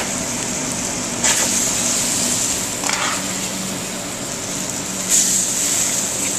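Capellini and vegetables sizzling in a hot stainless-steel sauté pan with a steady hiss. Metal tongs scrape against the pan three times, at about one, three and five seconds in, as the pasta is lifted out onto a plate.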